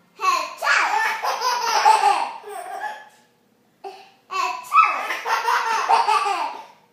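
A young child laughing hard in two long bouts of high-pitched giggles and belly laughs, with a short pause between them.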